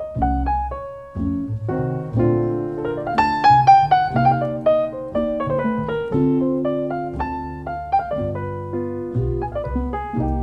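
Piano playing an instrumental break of a slow jazz ballad, a melody over chords, with no singing.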